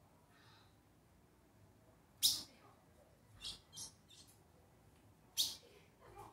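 Caged ultramarine grosbeak (azulão), a bird coming out of moult, giving short, sharp chip calls rather than song. There is a loud one about two seconds in, a quick pair around three and a half seconds, and another loud one near five and a half seconds.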